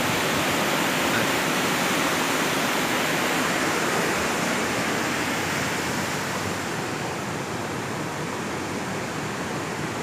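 Steady rushing of river water, easing a little over the last few seconds.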